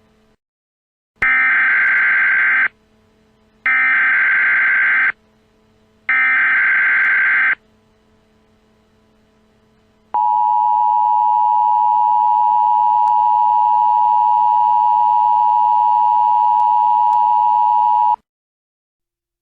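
Emergency Alert System header: three identical bursts of digital data tones, each about a second and a half long, then the EAS two-tone attention signal, a steady dual tone held for about eight seconds before it cuts off. The sequence marks the start of a new emergency alert broadcast.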